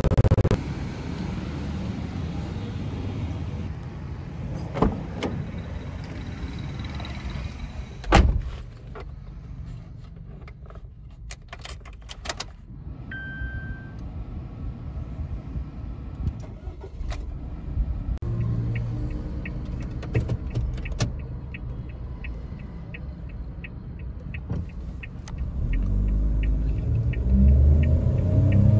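Inside the cabin of a Suzuki Wagon R with its 660cc three-cylinder turbo engine: a sharp clunk about eight seconds in, a short two-tone beep around thirteen seconds, then steady ticking about twice a second. Near the end the engine pulls harder and its note rises as the car accelerates from a standstill.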